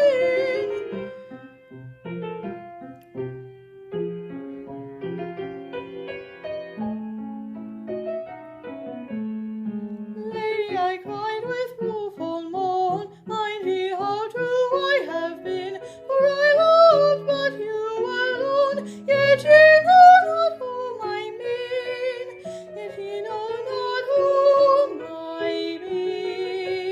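A woman's classical singing voice with piano: a held note ends just after the start, piano plays alone for about ten seconds, then the voice comes back with wide vibrato over the piano and swells to its loudest about twenty seconds in.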